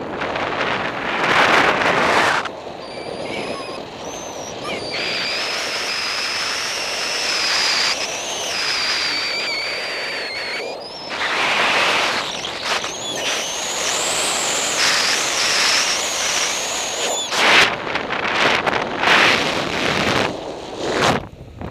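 Wind rushing and buffeting over the microphone during a motorless paraglider flight, surging in gusts. Through the middle a thin high whistle wavers up and down in pitch, steps higher about halfway, and cuts off suddenly about three quarters of the way in.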